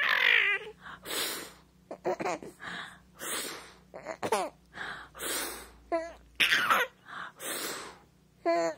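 Baby laughing: a run of breathy, huffing laughs about one a second, with short squeaky giggles in between.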